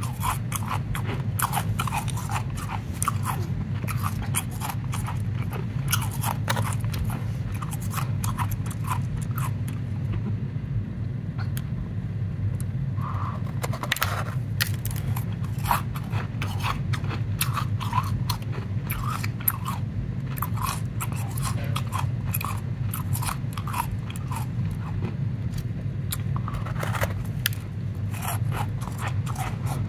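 Powdery ice being bitten and chewed: dense, crackly crunches several times a second, with a short lull about a third of the way in, over a low steady hum.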